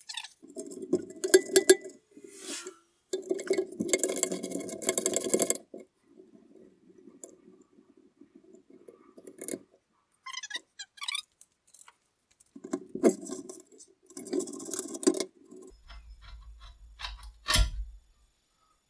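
Metal parts being worked loose and handled on a vehicle frame: repeated stretches of scraping and rattling with clinks of metal on metal, and a single heavier knock near the end.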